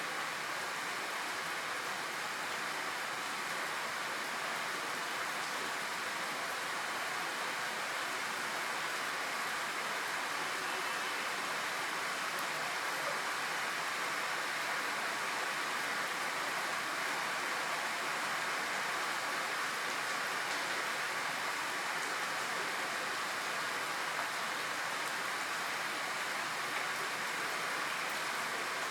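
Steady rain falling, an even hiss with no breaks or distinct drops.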